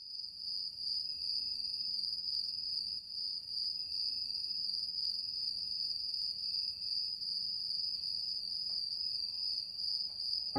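Steady high-pitched insect trill, with a faint low hum beneath it.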